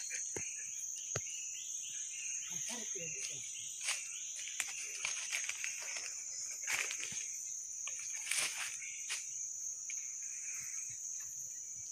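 Steady high-pitched insect drone of forest crickets, with scattered short rustles and clicks and a few faint distant voices.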